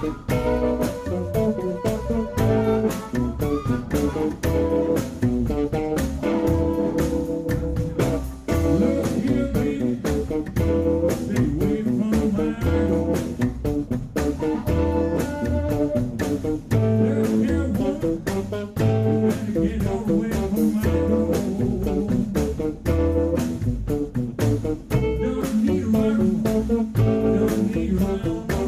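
Live blues band playing: harmonica wailing through a vocal microphone over acoustic guitar and upright bass.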